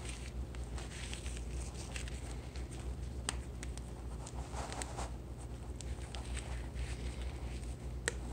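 Soft rustling and small ticks of hands handling a folded disposable face mask and pulling its elastic ear loops, with two sharp clicks, one about three seconds in and one near the end, over a steady low hum.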